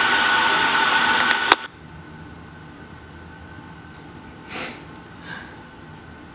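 A loud steady hiss for about the first second and a half, cut off by a sharp click. Then a crying woman sniffs twice, about four and a half and five seconds in.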